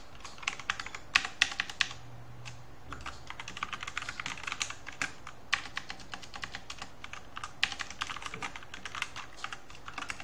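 Typing on a computer keyboard: quick, uneven runs of key clicks, with a brief pause about two seconds in.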